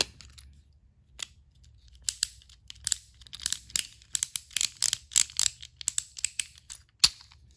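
Quick plastic clicks and rattles of a battery-powered toy train engine being handled for a test, with one louder click about seven seconds in. No motor runs: the engine's battery is dead.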